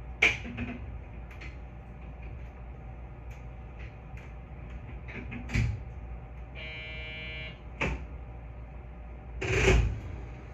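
Cab of a stopped 221 series electric train waiting to depart: a steady low hum with scattered clicks and knocks, a short electric buzz about six and a half seconds in, and a louder thud about a second before the end.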